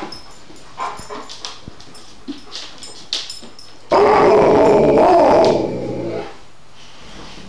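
An Alaskan Malamute gives a few short whines and yips, then, about four seconds in, breaks into a loud, drawn-out howl with its head raised. The howl lasts about two seconds before trailing off.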